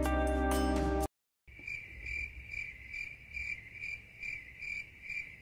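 Background music with tinkling tones that cuts off about a second in; after a brief silence, a cricket chirps steadily and high-pitched, about two chirps a second.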